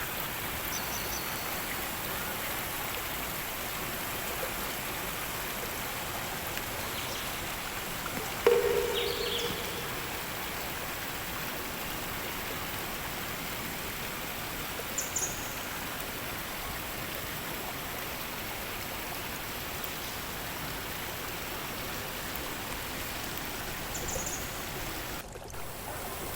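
River water flowing steadily. A few short high chirps sound over it, and about eight and a half seconds in there is one brief, louder call.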